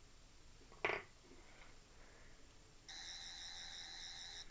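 A sharp click about a second in, then the 11th Doctor sonic screwdriver toy's electronic sound effect: a steady, slightly warbling buzzy tone lasting about a second and a half that cuts off just before the end.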